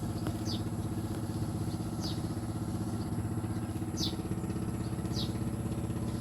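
Boat motor running steadily with a fast, even pulse. Short, high, falling chirps repeat every second or two over it, likely a bird calling.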